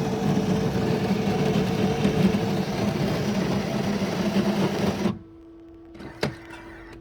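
Coffee machine's motor running loudly with a steady buzz, then cutting off suddenly about five seconds in, leaving a faint steady hum. A single sharp click follows about a second later.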